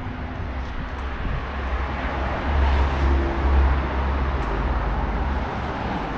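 Street traffic: a motor vehicle passes by, its deep rumble swelling to loudest about three seconds in and fading near the end, over steady city street noise.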